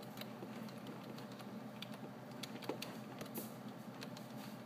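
Computer keyboard keys tapped irregularly, a scatter of sharp clicks over a faint steady hum.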